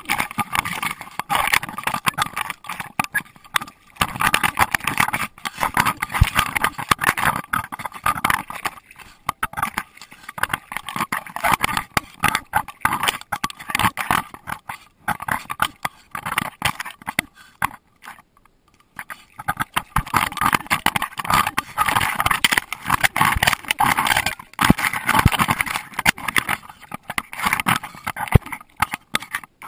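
Constant rubbing, scraping and knocking of a GoPro Hero2 in its waterproof housing strapped to a Doberman as the dog moves about and pushes through brush, with a brief quieter stretch a little past halfway.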